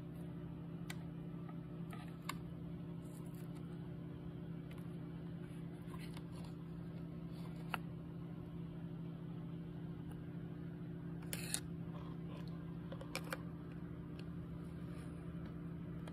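Steady low electrical hum with a few light clicks and taps from hands handling parts, the loudest a short cluster of clicks about two-thirds of the way in.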